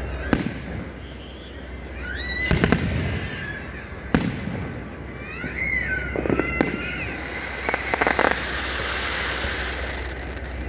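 Aerial firework shells going off: a series of sharp bangs at uneven intervals, several coming in quick pairs or runs.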